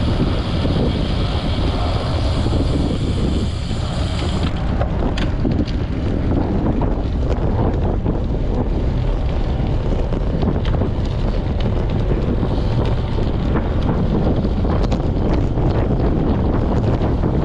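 Steady wind noise buffeting the microphone of a handlebar-mounted camera on a road bicycle riding at about 20 to 30 km/h. A higher hiss drops away about four and a half seconds in, and faint scattered ticks follow.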